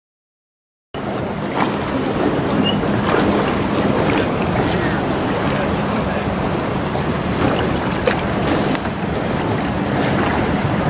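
Steady wind noise on the microphone by open water, with a faint steady low hum underneath, starting about a second in after dead silence.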